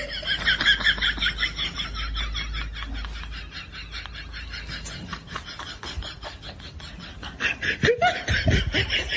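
A person laughing in quick repeated bursts, loudest at the start and again near the end.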